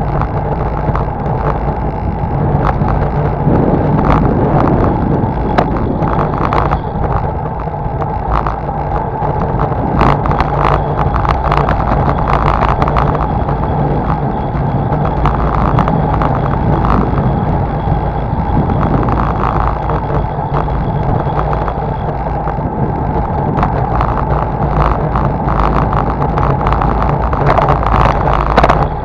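Riding noise picked up by a camera mounted on a moving bicycle: a steady low rumble and wind rush, broken by frequent short rattles and knocks as the bike goes over bumps in the road.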